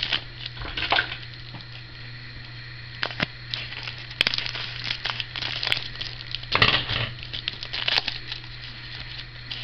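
Foil trading-card pack wrapper being torn open and crumpled by hand: irregular crinkling and tearing crackles, loudest about two-thirds of the way through, over a steady low hum.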